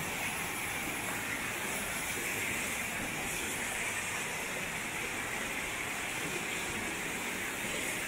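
Mountain stream and small waterfall cascades rushing steadily over rocks.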